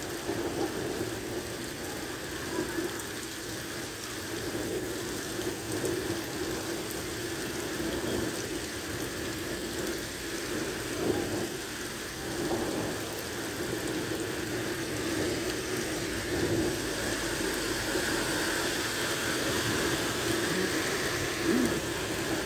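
Heavy rain pouring steadily onto pavement and a flooding street. Near the end, a small truck drives through the floodwater, splashing.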